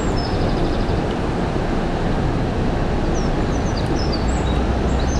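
Steady low rushing outdoor noise, with small birds chirping and trilling over it a few times.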